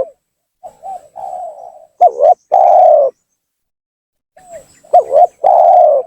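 Spotted dove cooing its song twice. Each phrase is a soft opening followed by two loud, low coos, the second one drawn out. It is played as a lure call to provoke rival doves.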